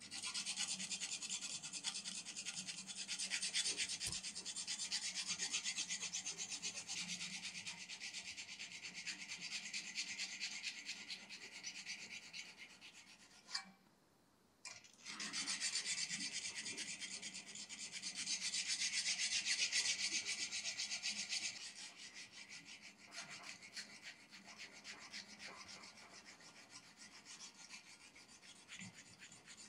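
Hand sanding a 1070 carbon-steel knife blade with 150-grit sandpaper on a block, a rough cleanup of freshly filed bevels: a rapid, rasping rub of back-and-forth strokes. It stops for about a second near the middle, resumes louder, then goes softer toward the end.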